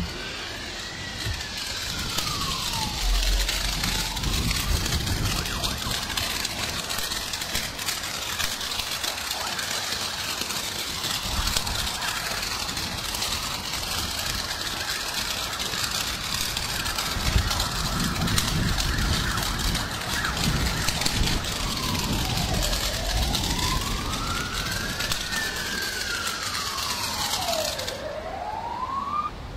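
Ground fountain firework spraying sparks, a steady hissing crackle. Near the start, and again over the last few seconds, a siren-like wail sweeps up and down in pitch.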